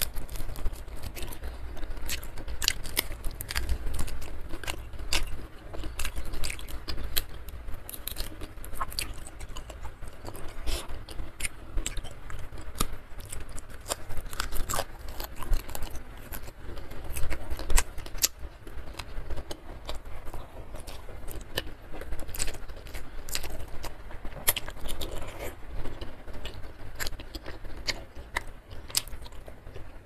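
Close-miked chewing and crunching of fried salted fish and rice eaten by hand, with many sharp, irregular mouth clicks and smacks.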